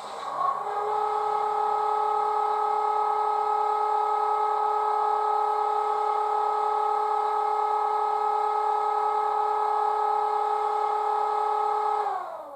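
A sound from the Class 30 DCC sound file: one steady, pitched tone with strong overtones, held level for about twelve seconds, then dropping slightly in pitch as it fades out near the end.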